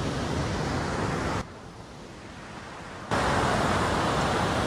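Steady rushing noise of wind on the microphone and the fast glacial river below a swing bridge. It drops abruptly quieter about a second and a half in and comes back louder a second and a half later.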